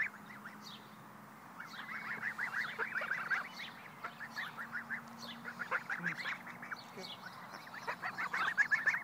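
Domestic geese chattering in quick runs of short, rapid calls, three spells of it, the longest about two seconds in.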